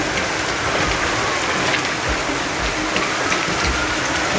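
Hail and heavy rain pelting down in a steady hiss, with hailstones striking hard surfaces as sharp ticks. A siren wails faintly underneath, its pitch falling then rising.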